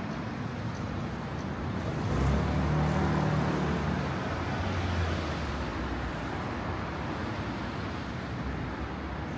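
Street traffic noise, with a motor vehicle passing close by: its low engine hum swells about two seconds in and fades by about five and a half seconds.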